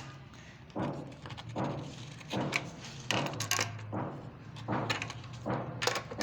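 A run of short knocks and scrapes, about one a second, from hand work on fittings while a geyser is being installed, over a faint low hum.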